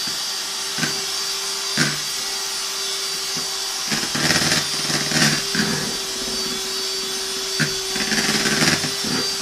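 Electric hand mixer running steadily with a constant whine, its beaters whipping egg whites and sugar into stiff meringue. A few sharp knocks of the beaters against the bowl, and louder, rougher spells of beating in the middle and near the end.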